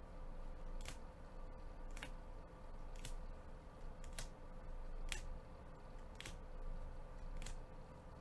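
Rigid plastic top loaders holding trading cards clicking and swishing against each other as gloved hands flip from one card to the next, about once a second, over a faint steady hum.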